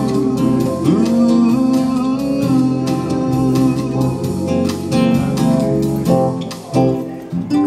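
Acoustic guitar and electric keyboard playing an instrumental passage of a slow song, the guitar picking over held keyboard chords. Near the end the music briefly drops away twice before a last chord.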